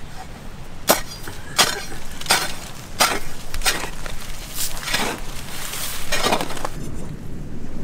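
Long-handled digging tool striking hard, stony soil as a pit is dug by hand: sharp chinking strikes, about eight of them at roughly two-thirds of a second apart, stopping near the end.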